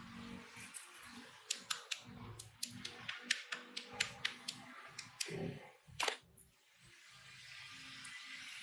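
A quick series of sharp, dry taps or clicks, about three to four a second, then one louder sharp click a little later, followed by a soft steady hiss.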